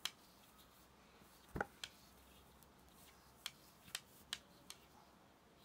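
Knitting needles clicking against each other as stitches are worked, a few sparse, irregular clicks, with one louder knock about a second and a half in.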